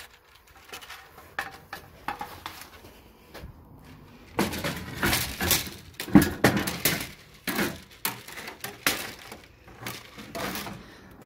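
Irregular clatter and knocks of tools and gear being handled and shifted, light at first, then a busier run of knocks through the middle and later part.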